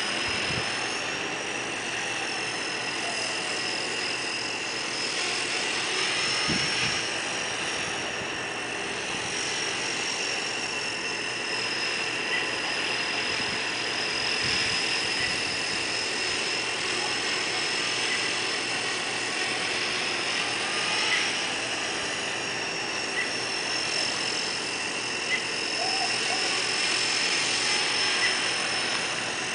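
Align T-REX 250 electric RC helicopter in flight: a steady high-pitched whine from its motor and rotors, wavering slightly in pitch as it manoeuvres.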